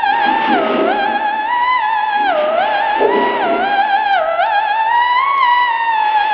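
Eerie theremin-style wailing tone that wavers with vibrato and slides down and back up between held notes, in a spooky sound-effects track.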